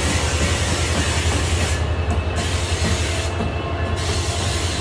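Amtrak Siemens Charger diesel-electric locomotives pulling a passenger train slowly into the station. The diesel engines run loud and steady, with wheel and rail noise.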